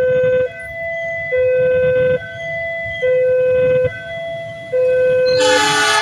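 Railway level-crossing warning alarm sounding an electronic two-tone, low then high, each tone held just under a second. About five and a half seconds in, the approaching diesel locomotive's horn blasts over it.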